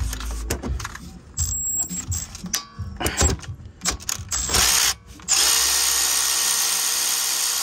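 Milwaukee power tool spinning a 14 mm socket to loosen a brake caliper bolt: clicks and a few short bursts, then about five seconds in a steady whir that runs until the bolt backs out.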